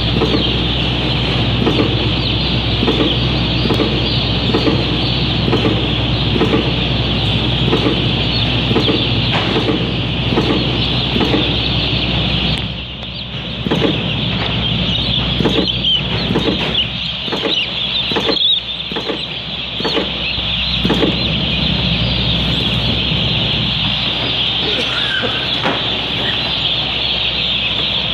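Many day-old chicks peep continuously over a steady low machine hum. An electronic chick vaccinator clicks again and again as chicks are injected one after another, about two to three clicks a second in the first half and less regularly later.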